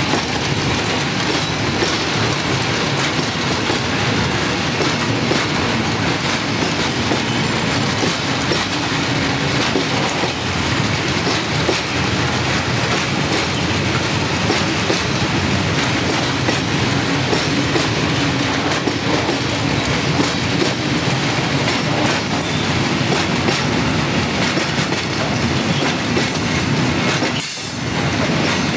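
Loaded freight train of Falls hopper wagons rolling past close by, the wheels clattering steadily over the rail joints. The sound dips briefly about a second before the end.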